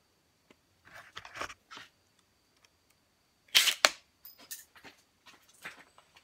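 Handling noise: the clicks and rustles of screws and a Makita cordless impact driver being picked up and fitted, with one louder clatter a little past halfway. The driver's motor does not run.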